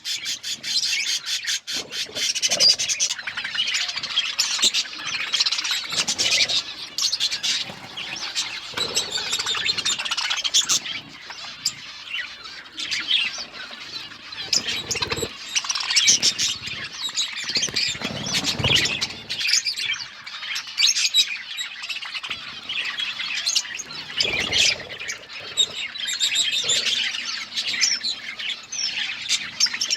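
A group of budgerigars chirping and chattering nonstop, many overlapping calls at once.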